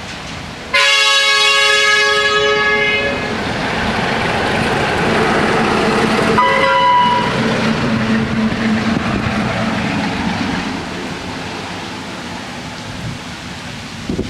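Diesel locomotive sounding its horn twice, a long chord-like blast about a second in and a short one about halfway, as a warning for the level crossing. Its engine and wheels rumble past afterwards and fade near the end.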